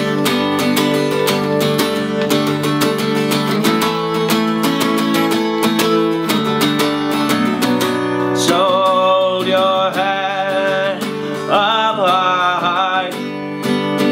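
A Tanglewood acoustic guitar strummed steadily in an even rhythm of chords. In the second half a wordless voice holds two wavering notes over the strumming.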